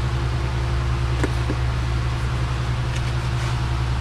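Steady low electrical hum with a hiss, and a couple of faint clicks just over a second in.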